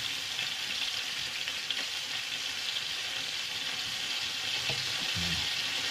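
Floured pieces of viper frying in hot oil in a frying pan: a steady sizzle with spattering oil.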